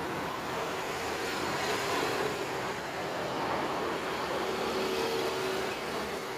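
Steady road traffic noise from cars and motorcycles running along the street, with a short steady engine tone about five seconds in.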